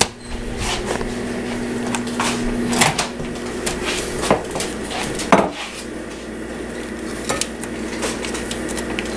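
Microwave oven humming, cut off with a click just under three seconds in, followed by the clatter of a ceramic plate and food pouches being handled, with several sharp knocks.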